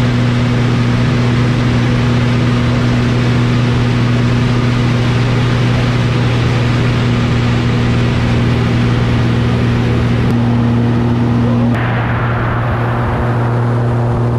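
Extra 300 aerobatic plane's engine and propeller drone steadily in flight, heard from the cockpit. About twelve seconds in, the sound shifts, slightly quieter with more hiss.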